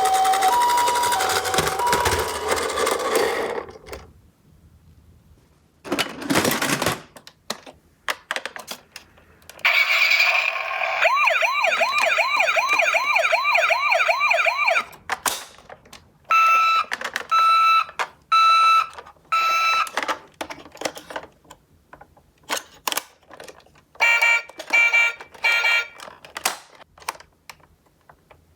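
Electronic sirens of toy ambulance minicars: a two-tone hi-lo siren at the start, a rising-and-falling wail for about five seconds in the middle, then two short runs of repeated beeps. Sharp plastic clicks and clatter sound between the sirens.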